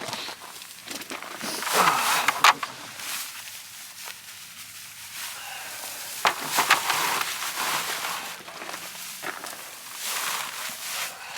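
Dry grass hay rustling and crackling as it is pulled from the bale and stuffed into a hay net, in three bouts.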